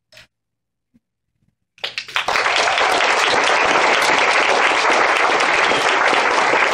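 Audience applauding, breaking out suddenly about two seconds in after near silence and continuing steadily.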